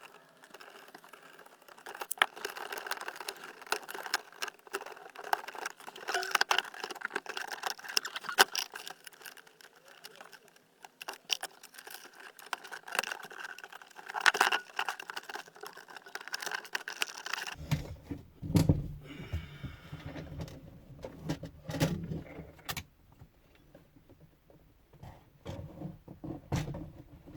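Metallic clinking and jangling of hand tools with plastic trim rattling while the centre console is unbolted and worked loose. Heavier knocks and thuds come in about two-thirds of the way through.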